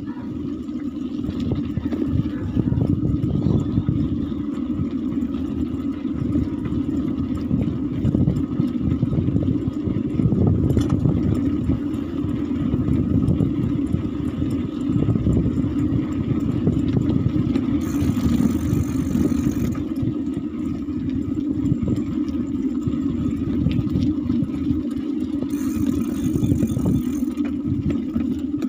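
Wind buffeting the microphone with road rumble while riding a bicycle along a rough lane: a loud, steady, gusty low rumble. A brief high hiss cuts in twice, a little after the middle and near the end.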